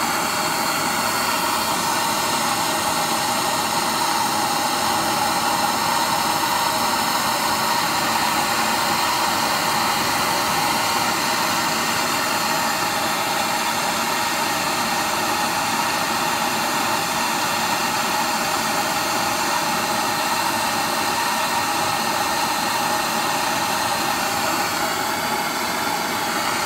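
Handheld gas torch burning with a steady hiss, its flame held on a seized driveshaft joint to heat it and free it.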